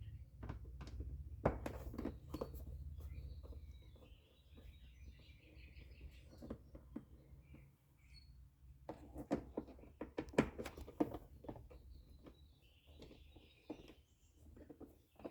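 Scattered clicks and taps of a Torx screwdriver working the screws out of a MK7 GTI's plastic air-filter box lid, with clusters of taps about a second and a half in and again around nine to eleven seconds. Birds chirp faintly now and then, and a low rumble fills the first few seconds.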